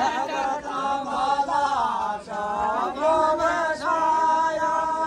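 A group of women singing a Kumaoni chanchari folk dance-song together in chorus, with some long held notes.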